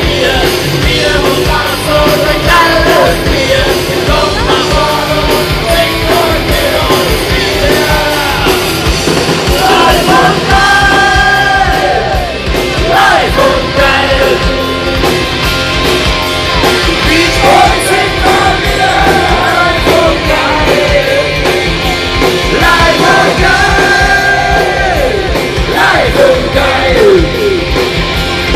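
A live rock band playing loud music with shouted singing.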